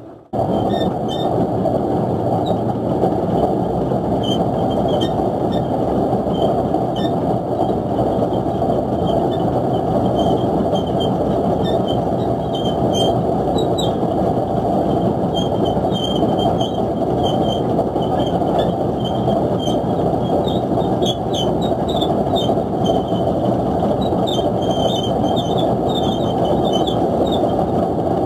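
Fishing boat's engine and deck machinery running steadily and loudly while the net is hauled aboard, with frequent short, high-pitched squeaks over the steady noise.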